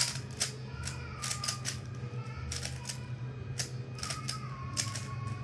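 Rubik's cube being scrambled by hand: its plastic layers are twisted in quick, irregular turns, each giving a sharp clicking snap.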